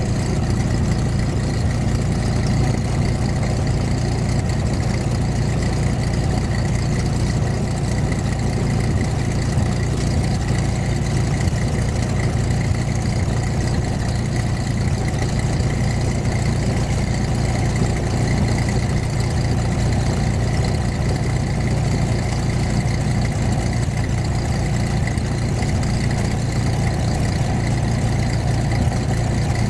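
Single-engine light aircraft's engine running steadily at low power as the plane taxis, heard from inside the cockpit as an even, unbroken low hum.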